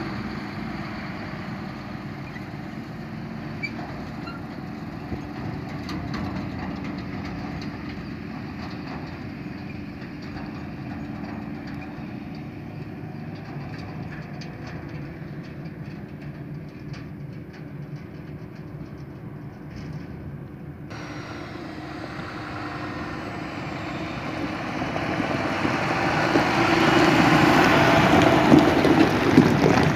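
Forage harvester and tractor engines running steadily at a distance while maize is chopped. In the last few seconds a tractor pulling a silage trailer drives close past, its engine and tyres on gravel growing loud.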